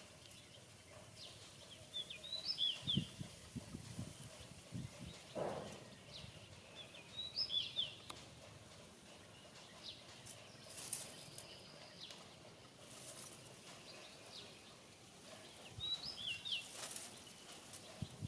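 A bird repeats a short, quick phrase of high chirps three times, spaced several seconds apart, over steady outdoor background noise. A few low knocks and brief rustles come in between.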